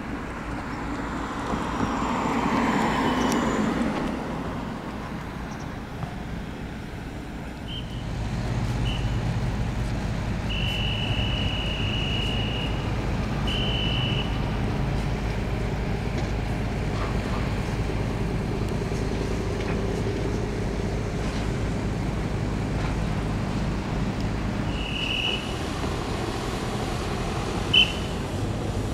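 Road traffic and engine noise. A vehicle passes close by, swelling and fading within the first four seconds. Then a steady engine drone runs on, with several short high-pitched tones (the longest about two seconds) and a single sharp knock near the end.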